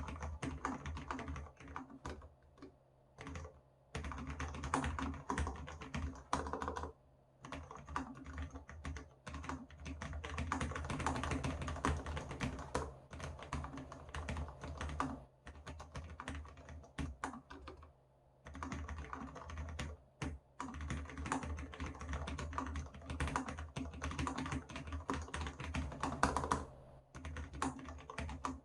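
Cherry MX Board 10.0 low-profile keyboard with Cherry MX Low Profile Red linear switches being typed on in fast runs of keystrokes, with brief pauses between them. Low thuds from the desk the keyboard sits on come through under the key clicks.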